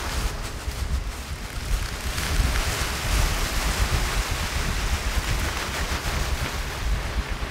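Film sound-design ambience: a deep, fluctuating low rumble under a steady rushing noise, with no distinct events.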